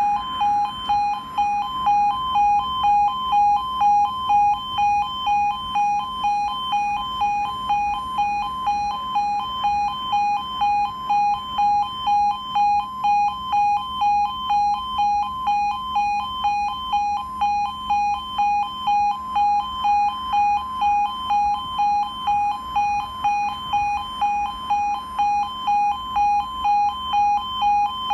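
Level crossing audible warning (the British 'yodel' alarm): a two-tone electronic warble that alternates between two pitches, repeating just under twice a second. It sounds while the barriers are lowered, warning that the crossing is closed for an approaching train.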